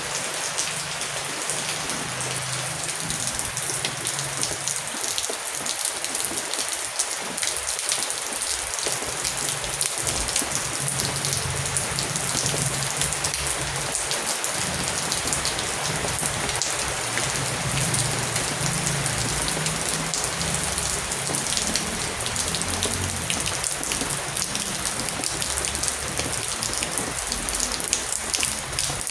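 Heavy rain falling steadily, a dense patter of drops with many sharp individual drop ticks.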